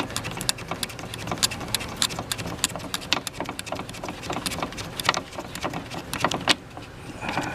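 Rapid irregular clicks and small scrapes of the ignition switch's retaining ring being worked loose and off on a John Deere 777 riding mower.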